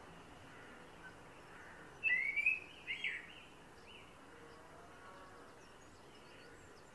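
Male common blackbird singing one short fluted phrase about two seconds in: a rising whistle followed by a few quick notes, lasting about a second, over a faint steady background hiss.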